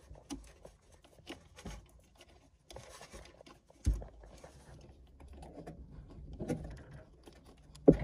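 Hands working the motor wiring and plastic connector block inside a washing machine: scattered small clicks and rustles, with a thump about halfway through and a sharper, louder knock near the end.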